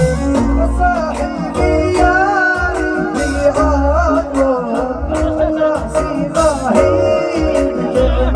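Arabic hejini song: a man singing a wavering melody over instrumental backing with held notes and a low, repeated drum beat.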